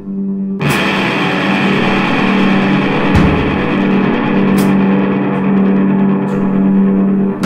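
Noise-rock music: a dense wash of distorted electric guitar comes in about half a second in over a held low drone, with a few sparse drum hits.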